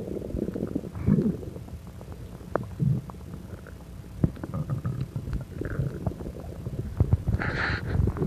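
Human stomach and gut gurgling and bubbling as pancakes eaten too quickly are digested, with low rumbles broken by scattered sharp clicks. A short hissy burst comes near the end.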